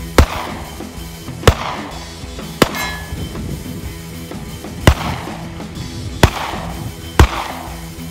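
Handgun shots fired one at a time, six of them spaced unevenly about one to two seconds apart, each sharp crack trailing off in a short echo.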